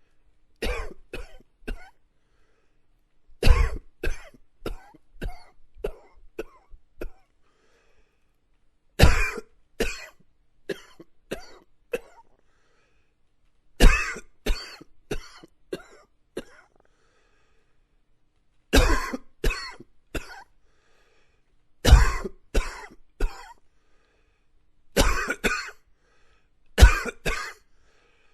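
A man coughing in about seven separate fits, with short silent gaps between them. Each fit opens with a loud cough and trails off into several weaker ones.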